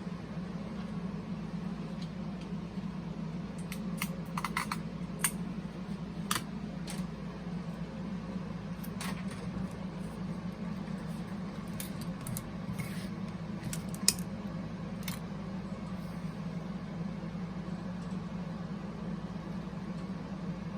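Scattered small clicks and taps from handling small parts and tools during disassembly, the sharpest one about 14 seconds in, over a steady low hum.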